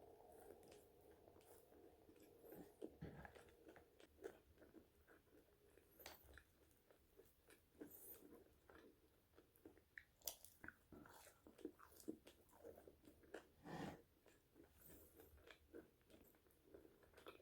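Faint chewing and biting of french fries: irregular soft crunches and wet mouth clicks, with a heavier bite about three-quarters of the way through.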